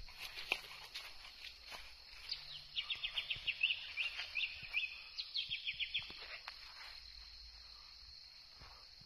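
A bird singing a run of quick, short chirps, about four a second, for a few seconds from about two seconds in, over a steady high-pitched insect drone.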